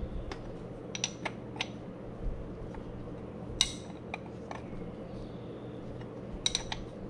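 Box-end wrench clinking on the hold-down bolt and metal lid of a canister oil filter as the bolt is snugged down: irregular sharp metallic clinks, the loudest about three and a half seconds in and a quick cluster near the end, over a low steady hum.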